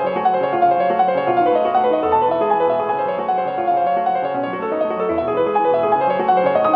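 Background piano music: a steady flow of short piano notes.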